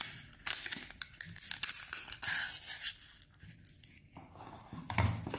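Rustling and scraping of a cardboard sleeve and a coiled USB-C cable being handled and slid into a cardboard box, busiest in the first few seconds, then quieter, with a soft knock near the end.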